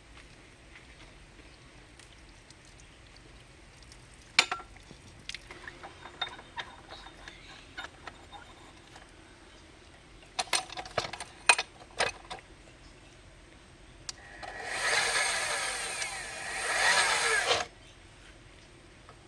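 Concrete core-drilling machine set up against a wall: a few sharp clicks and knocks as the rig is handled, then the drill runs loudly for about three seconds and cuts off suddenly.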